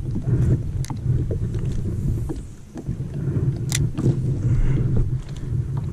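Wind buffeting the microphone in a low, fluttering rumble over light lake chop against a kayak hull, with two sharp clicks, one about a second in and another near four seconds.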